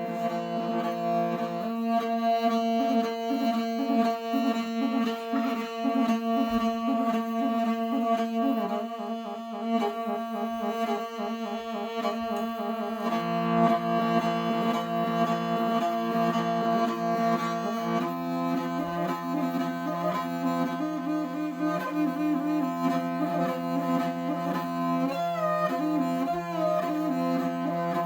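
Bowed string instrument playing a melody over a steady drone, in the Tuvan–Mongolian folk style. The drone shifts to new pitches about halfway through, and again a few seconds later.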